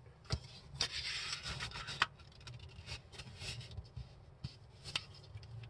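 A sheet of paper being folded and creased by hand on a tabletop: soft rubbing and rustling as fingers slide the paper and press the fold flat, with a few short crinkling clicks.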